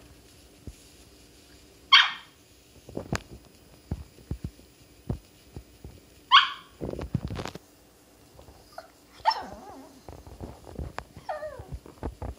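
Small dog giving four sharp, high-pitched barks a few seconds apart, the last two falling in pitch, with soft knocks and thumps between them. These are demand barks: the dog wants to be picked up.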